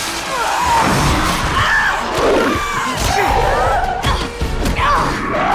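Mutant monkeys screeching in short, bending cries during an attack, with heavy thuds of a struggle, over tense film score music.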